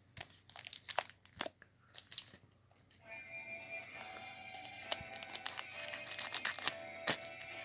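Trading-card pack wrapper crinkling and cards being handled: a run of sharp crackles and clicks. About three seconds in, quiet background music with held tones comes in underneath.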